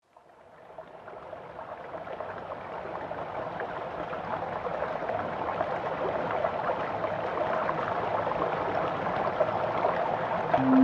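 Rushing water of a stream or river fading in slowly from silence and growing steadily louder. A low held synth note comes in right at the end.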